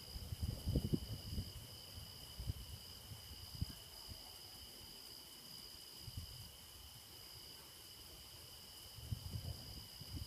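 Night insects trilling steadily in two continuous high-pitched tones. Low, irregular rumbling bumps come about a second in and again near the end.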